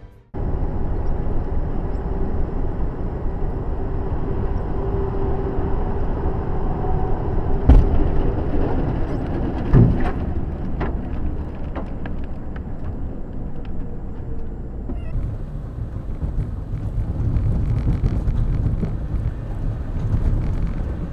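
Vehicle driving on the road heard from inside the cab: a steady rumble of engine and tyres, with two sharp knocks about eight and ten seconds in.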